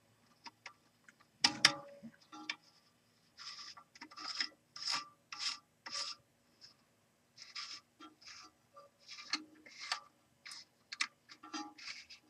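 Plastic nut being turned by hand onto the threads of a toilet fill valve, holding down its cap and lever assembly: a sharp knock about a second and a half in, then a run of short rasping scrapes, one per turn of the hand.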